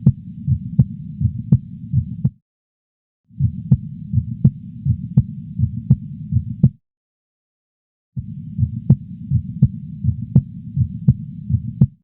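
Recorded heart sounds from a heart-and-lung auscultation simulator's sound library. They come in three stretches cut apart by silent gaps, with a sharp beat about every two-thirds of a second over a steady low rumble.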